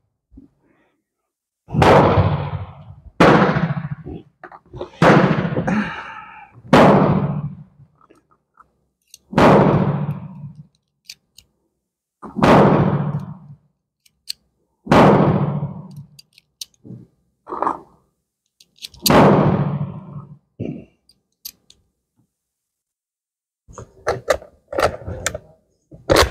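Gunshots from other shooters on the firing line: about eight loud bangs at irregular intervals, each with a short echoing tail. Near the end they give way to a few faint clicks and knocks.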